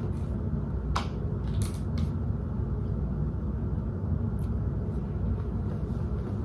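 Steady low background hum, with a few light clicks and knocks as plastic pump bottles of hand soap are lifted out of and set back into a cardboard gift box.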